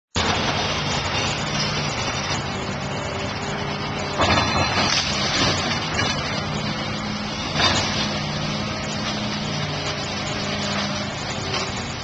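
An excavator's diesel engine runs steadily as it demolishes a house. Two loud crashes of breaking and falling wall debris come about four seconds in and again near eight seconds.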